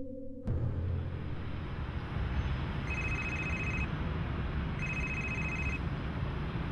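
Mobile phone ringtone ringing in about one-second electronic rings, one every two seconds, starting about three seconds in, over a steady background hum. A music cue cuts off about half a second in.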